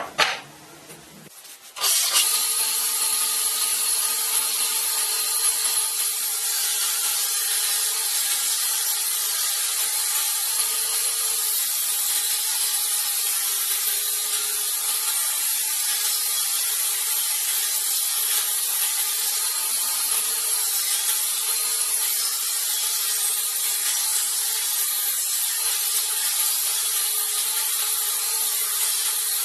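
A power tool running steadily, a constant hiss with a faint motor hum beneath it, starting about two seconds in after a couple of short knocks.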